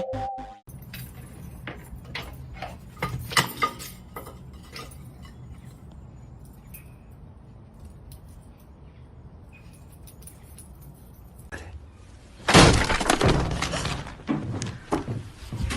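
A sudden loud crash about twelve seconds in, with clattering knocks trailing after it, like something falling and breaking. A few lighter clicks and knocks come earlier.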